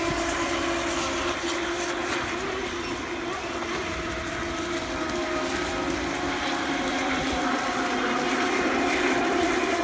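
Pro Boat Recoil radio-controlled boats racing, their brushless electric motors giving a steady whine that wavers slightly in pitch, over the hiss of the hulls cutting through the water.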